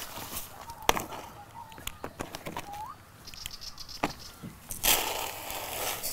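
Backyard hens calling softly as they are fed scratch mix: a few short rising chirps, a couple of sharp knocks, and a rustling hiss of feed and scratching about five seconds in.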